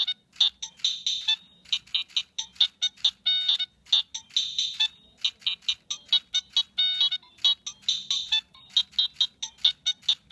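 Nokia 3586 mobile phone playing one of its built-in ringtones: a quick melody of short, high-pitched notes with a few longer held ones, repeating without a break.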